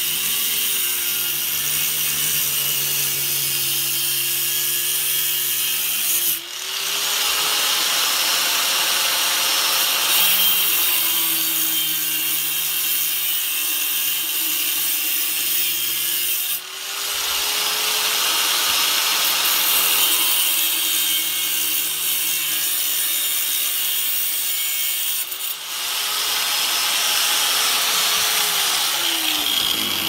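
Chicago Electric angle grinder cutting through the end of a chrome two-stroke expansion chamber pipe: a steady motor whine under a harsh cutting hiss. The hiss eases briefly three times as the disc is repositioned, and near the end the grinder is switched off and winds down.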